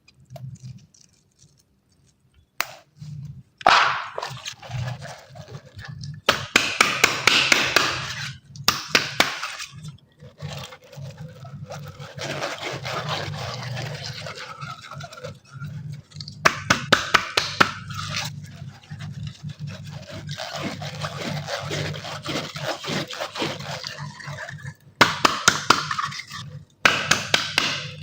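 Water balloons being cut open, water gushing and splashing out in repeated bursts of a few seconds each, with sharp clicks and snaps through them. A low steady hum runs underneath.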